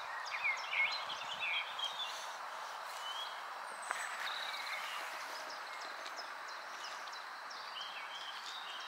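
Small birds chirping with short, quick calls over a steady outdoor background hiss.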